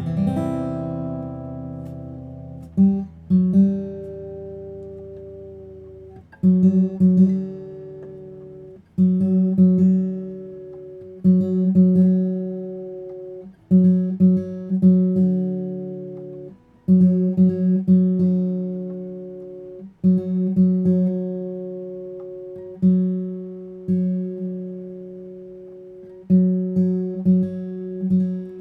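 Guild JF-30 jumbo flattop acoustic guitar being played slowly: a chord is struck about every two to three seconds and left to ring out and fade.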